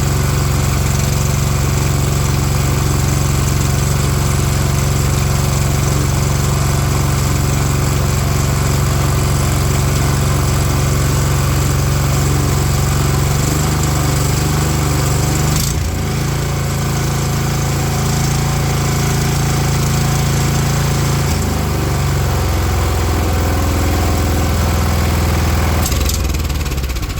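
Water blaster's small petrol engine running on a newly fitted carburettor while its mixture screw is adjusted. Its note shifts a few times, with a sudden change about two-thirds of the way in, and it dies away at the very end.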